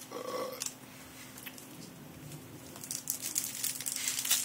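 Crinkling and crackling of foil trading-card booster-pack wrappers being torn and handled, starting about three seconds in. Before that come a few faint clicks of cards being handled.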